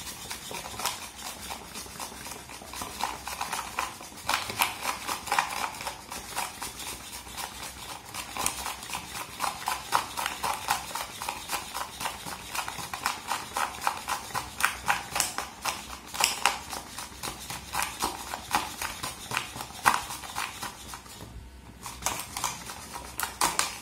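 Manual whisk beating instant coffee, sugar and cold water in a clear plastic tub: rapid, rhythmic clicking and tapping of the whisk against the plastic as the mixture is whipped toward a foam. The beating stops briefly near the end, then resumes.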